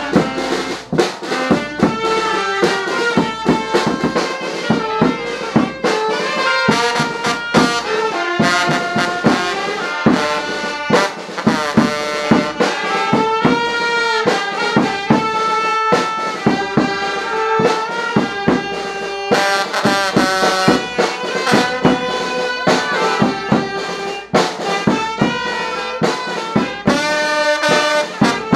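Instrumental music: brass instruments, trumpet and trombone, playing a melody of held notes over a drum beat.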